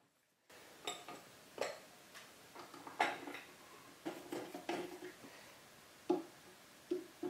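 Light, irregular metallic clinks and taps as a glass panel and its gasket are worked into a wood stove's metal door frame, a dozen or so small knocks, some ringing briefly.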